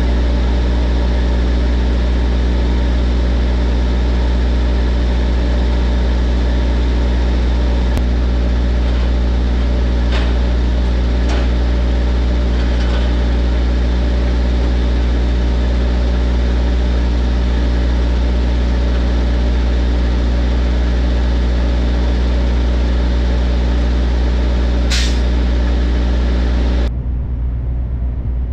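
Large diesel engine idling steadily close by, with a few light clicks over it. The steady hum stops abruptly near the end, leaving a rougher rumble.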